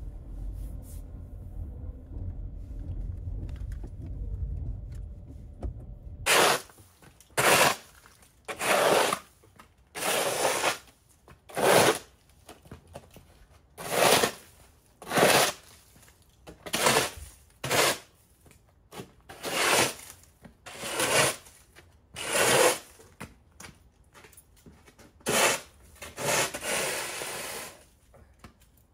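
A low steady rumble for about six seconds, then a run of about fifteen rough scraping strokes, roughly one a second with two short pauses.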